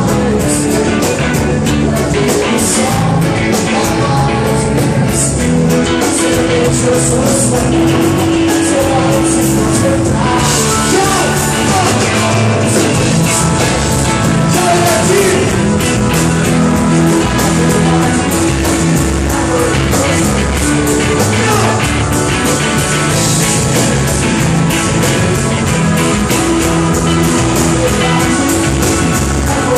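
Live band music played loud, with a lead singer over electric and acoustic guitars and percussion, keeping a steady beat.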